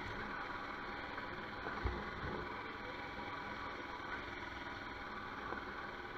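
Royal Enfield Himalayan motorcycle riding along a gravel track: a steady blend of engine and wind noise, with a single low thump about two seconds in.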